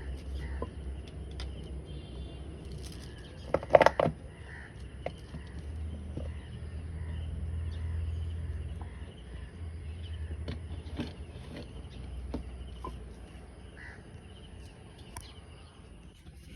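Outdoor ambience: a few short harsh caws, like a crow's, about four seconds in, over a steady high insect drone and a low rumble.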